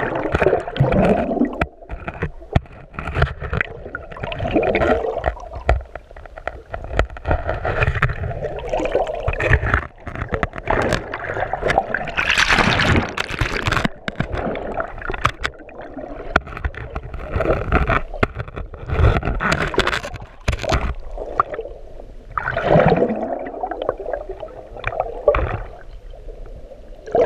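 Muffled water sloshing and gurgling heard through a camera held underwater in shallow sea, with scattered sharp clicks and knocks. A louder, hissing surge comes about twelve seconds in.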